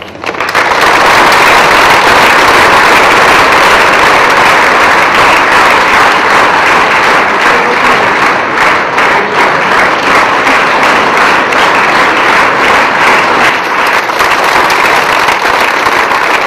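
A large crowd clapping: loud, continuous applause that starts abruptly and holds steady.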